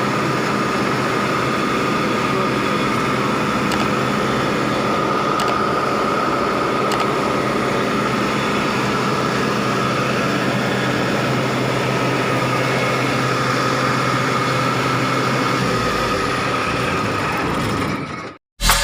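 Kubota AR96 combine harvester engine running steadily, with a steady whine over it; the low end of the sound shifts near the end and it then cuts off abruptly.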